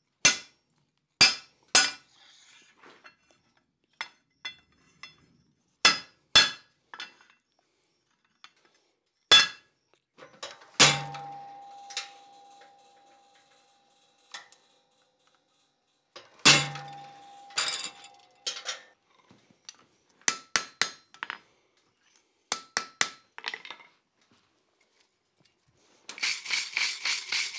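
Blacksmith's hand hammer striking hot iron on the anvil in separate sharp, clinking blows with pauses between them. Two heavier blows, about 11 and 16 seconds in, ring on briefly. Near the end a stiff wire brush scrubs the piece in quick rapid strokes.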